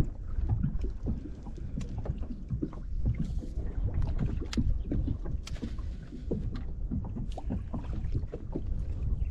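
Small waves lapping and slapping against a boat's hull in irregular knocks, over a low steady rumble.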